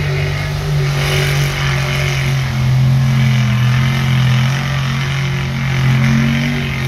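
Lifted mud truck's engine running steadily at a constant speed, a loud, even drone with no revving.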